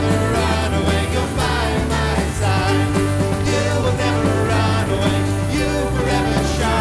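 Contemporary worship song played by a full band, with a steady bass line, drums and a sung melody.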